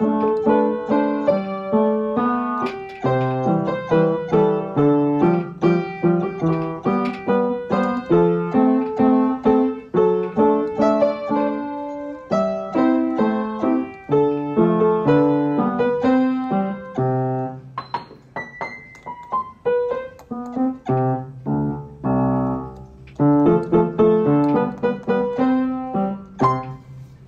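Background piano music: a melody of separate notes that ring and fade, steady until it ends right at the close.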